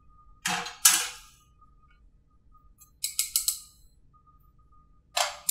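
Stainless steel saucepans and metal utensils clanking: two loud ringing clanks about half a second apart, a quick rattle of four or five clinks about three seconds in, and one more clank near the end.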